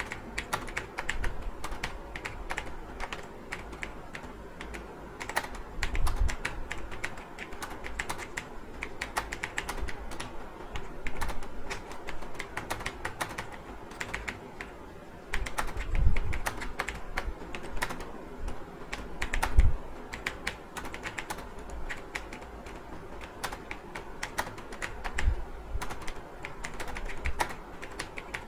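Computer keyboard being typed on continuously, a rapid run of key clicks with a few heavier low thumps in between.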